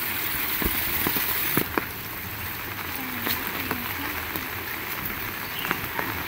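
Heavy rain falling in a steady hiss, with scattered louder drops tapping close by; the hiss thins a little about one and a half seconds in.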